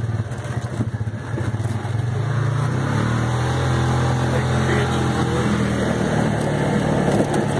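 Side-by-side utility vehicle engine running as it drives along a dirt trail, heard from inside the cab. Its pitch climbs about two to three seconds in and then holds steady.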